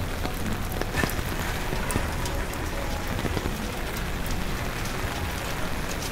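Steady rain falling, with many small sharp drop hits throughout.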